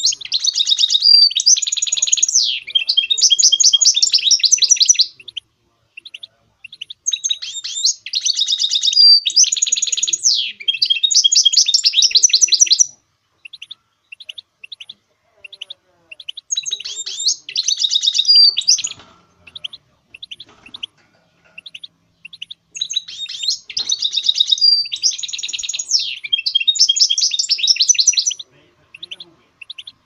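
A finch singing goldfinch-style song: four long phrases of fast, high twittering trills and slurred notes, each a few seconds long. Between the phrases come short pauses with a few scattered chirps.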